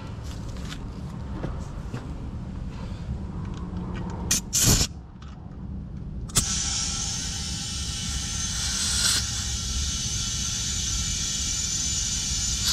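Air compressor running with a low rumble while a racing tire is aired up: a short loud burst of air about four seconds in, then, after a click about six seconds in, a steady hiss of air flowing through the chuck into the tire.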